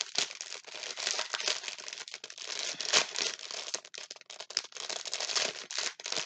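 A diamond painting kit's clear plastic packaging crinkling and crackling as it is handled, with a sharper crackle about three seconds in.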